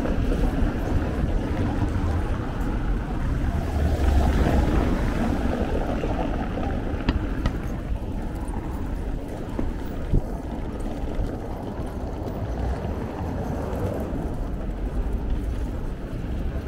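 Bicycle rolling over paving stones and cobbles, a steady rumble mixed with wind buffeting the microphone, a little louder in the first few seconds. A couple of sharp clicks about seven and ten seconds in.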